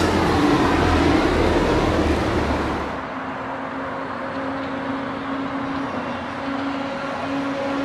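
Shanghai Transrapid maglev train moving along a station platform: a dense rushing hum with a whine that dips and then rises again. About three seconds in, the sound cuts to a quieter steady rush of the maglev running along its elevated guideway, with a steady low tone.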